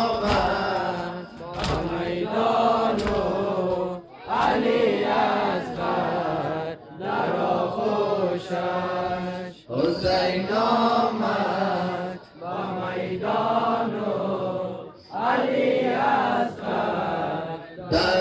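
Male voices chanting a Persian noha, a mourning lament for Imam Husain, in phrases of about two to three seconds with short breaks between them. A few sharp slaps of chest-beating come in the first seconds.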